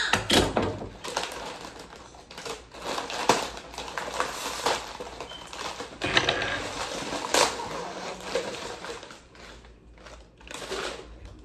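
Plastic Oreo cookie package crinkling and rustling as it is handled and opened, a dense run of irregular crackles and clicks.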